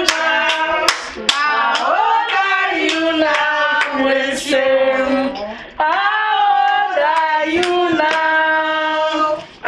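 Singing with hand claps keeping a steady beat, about two to three claps a second, over long held notes.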